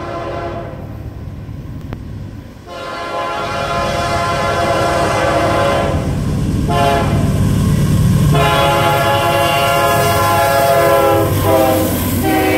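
CSX freight train's lead GE diesel locomotive sounding its air horn for a grade crossing, in several long blasts with short breaks between them. Under the horn, the locomotive's diesel engine and wheels rumble and grow louder as it approaches and passes close by near the end.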